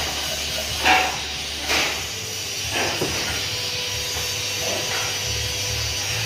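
A handheld glass cutter knocking and scraping against a sheet of scored glass, making a few short, sharp clicks, the loudest about a second in. A steady low hum runs underneath.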